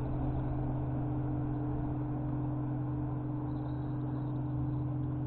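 A steady low mechanical hum with a constant droning tone and an even noise underneath.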